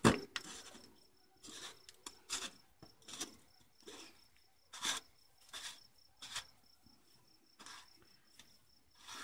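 Oil filter cartridge cap being turned by hand into its housing, giving short scraping rubs about once a second as the hand turns and regrips it. A faint, even, high-pitched chirping repeats several times a second behind it.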